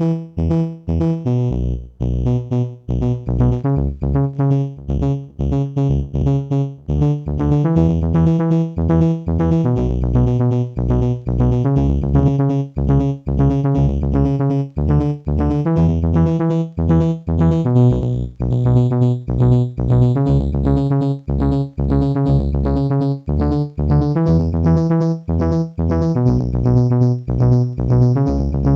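Electronic keyboard playing a rhythmic synthesizer pattern through a multi-type delay pedal set to its LoFi delay mode. Short repeated notes run over a steady low beat, with a bass line that shifts pitch every few seconds.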